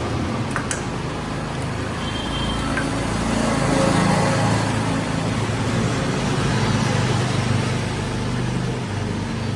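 Steady rumble of passing road traffic, with a sharp click a little under a second in.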